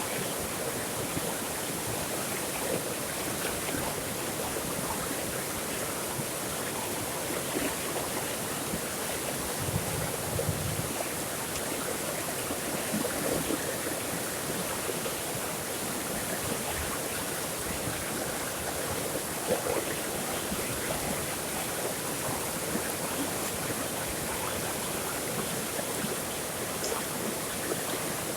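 Flowing water running steadily, an even rushing noise with small gurgles and splashes through it.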